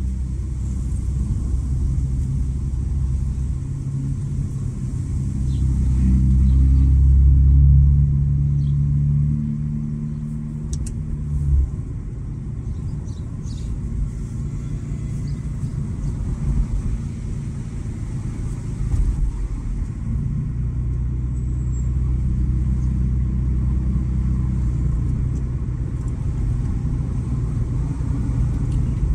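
A Honda Accord's 3.5-litre V6 with its muffler deleted, heard on the move as a low exhaust note. It swells louder for a few seconds before the middle, drops away suddenly, and later settles back into a steady note.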